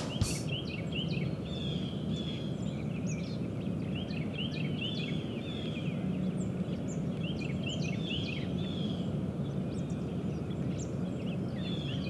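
Several songbirds chirping and calling in quick short notes, over and over, over a steady low outdoor rumble.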